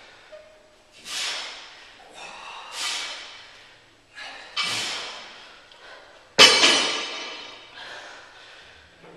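Hard, breathy exhalations every second or two as tricep reps are pushed out. About six seconds in, a steel barbell drops onto the concrete floor with a loud clang that rings on for about a second.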